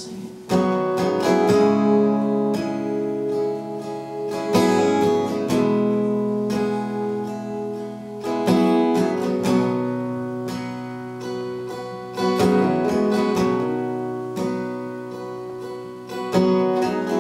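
Solo acoustic guitar playing a slow strummed chord intro: a heavy strum about every four seconds, each chord left to ring, with lighter strums in between.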